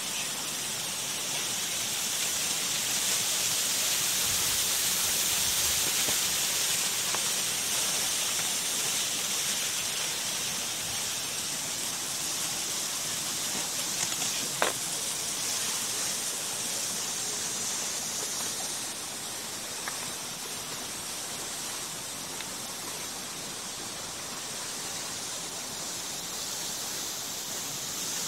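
Steady rushing of flowing water from a mountain stream, an even hiss, with one sharp click about halfway through.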